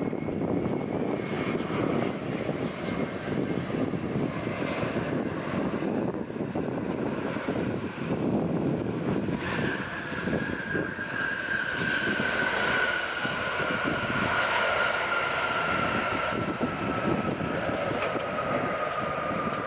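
Airbus A350-900's Rolls-Royce Trent XWB jet engines rumbling as the airliner lands and rolls out. About halfway through, an engine whine comes in and slowly falls in pitch.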